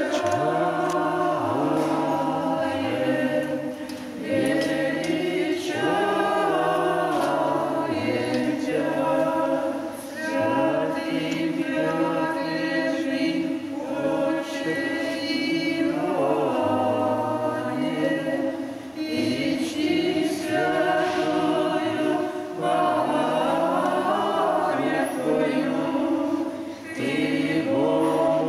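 Unaccompanied choir singing Orthodox church chant: several voices in long, sustained phrases with brief breaks between them.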